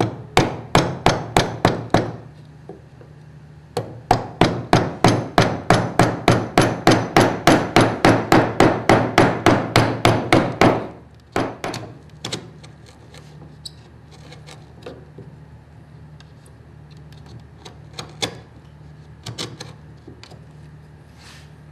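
A wood chisel struck with rapid mallet blows, about three to four a second, chopping across the full thickness of the timber to widen a cross halving joint's notch. A burst of about six blows comes first, then after a short pause a long run of about twenty-five, then a few single lighter taps.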